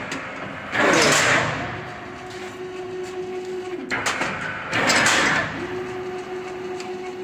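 Full-automatic single-wire chain link fence machine running idle: a steady hum broken twice by a loud rushing, sliding stroke of its mechanism, about a second in and again around four seconds in.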